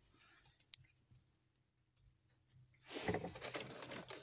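Hands handling loose wires and plastic connectors while joining the glow-plug feed by hand: a few faint clicks, then louder rustling and scraping about three seconds in.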